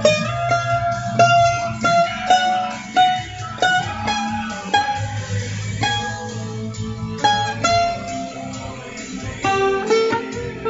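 Guitar music: a melody of single picked notes, each ringing out, over a sustained low bass.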